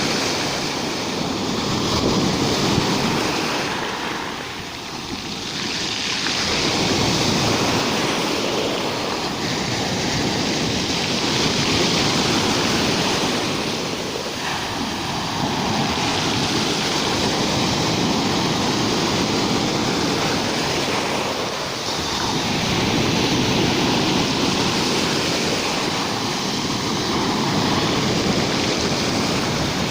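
Rough sea surf breaking on the shore: a continuous wash of noise that swells and eases, dipping briefly three times between waves.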